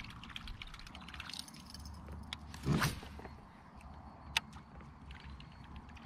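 Fishing reel cranked fast, retrieving a swimbait over the surface, with faint ticking under a steady low rumble. A short loud thump comes about three seconds in, and a single sharp click a little after four seconds.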